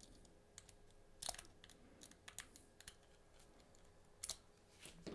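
Faint, scattered clicks of a lock pick and tension tool working the pins inside a Bell Armoury 200 padlock, with the sharpest clicks about a second in and again near the end.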